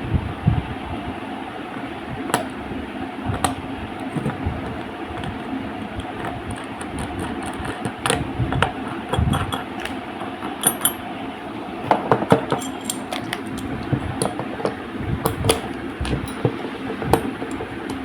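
Small metal parts of a sliding-door hanging wheel clicking and clinking as the roller, screw and nuts are fitted together by hand, over a steady background hum.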